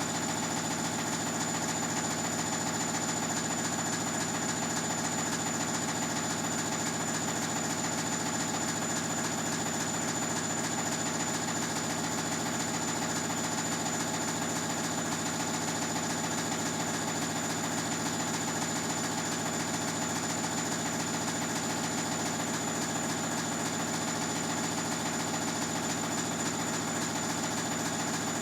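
Bosch Classixx 6 Vario Perfect washing machine running its spin, a steady mechanical hum with a constant high-pitched whine above it.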